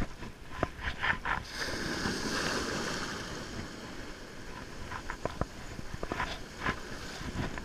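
Ocean surf washing in around the wader, a rush of foaming water loudest about two seconds in that then eases off, with a few short clicks scattered through it.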